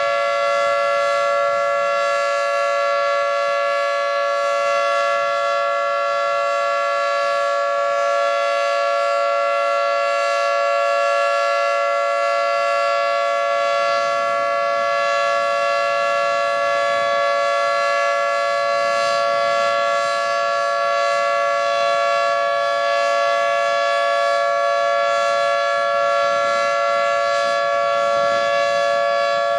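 Federal Signal 2T22 dual-tone outdoor warning siren sounding a steady alert. Its two rotors hold a constant two-note chord at full speed, with no rise or fall in pitch.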